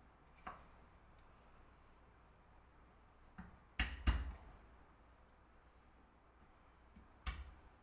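An ingredient being smacked to crush it: a few sharp knocks, the loudest two in quick succession about four seconds in, and one more near the end.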